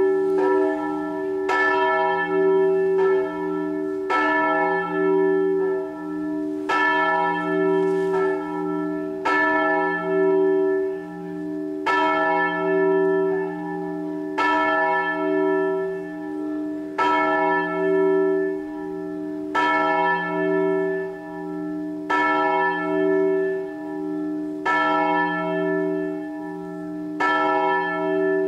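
Church bells ringing in a steady peal, a stroke about every second and a quarter. Each stroke leaves a long, beating hum that carries under the next.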